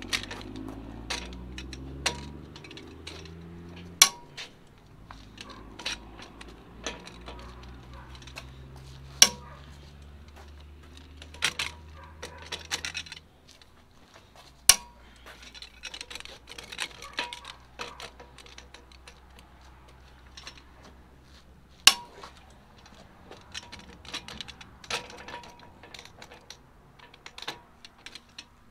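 A Precision Instruments 1-inch drive click-type torque wrench checking the torque on semi truck lug nuts: sharp metallic clicks from the wrench's torque mechanism every few seconds, with lighter bursts of clicking and clinking from the ratchet and socket between them.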